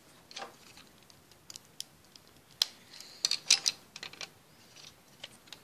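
Plastic Lego bricks clicking and tapping as they are handled, set down on a wooden table and pressed together: scattered sharp clicks, with a quick run of them a little past the middle.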